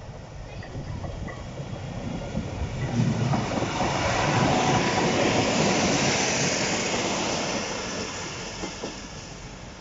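Two coupled Class 153 diesel railcars passing at close range, the sound of engines and wheels on the rails building up, loudest in the middle, then fading away as the train goes by.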